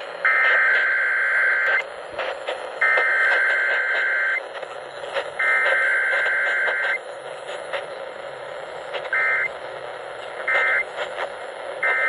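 Emergency Alert System digital data bursts played through a Midland emergency radio's speaker on AM broadcast: three long, harsh buzzing header bursts of about a second and a half each, then three short end-of-message bursts, over steady AM radio hiss. This is the coded start and end of a Required Weekly Test.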